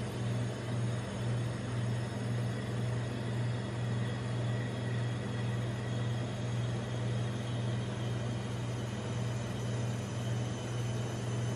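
Steady low hum of a rolled-ice-cream machine's refrigeration unit chilling the steel cold plate, wavering slightly in loudness.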